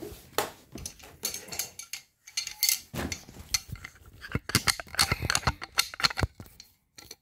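Irregular clicks, knocks and light metallic clinks from hands handling metal parts and the phone close to the microphone, with rubbing in between.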